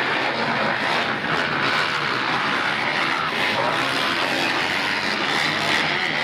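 Several motocross dirt bikes racing together, their engines revving and running in a steady, dense mix.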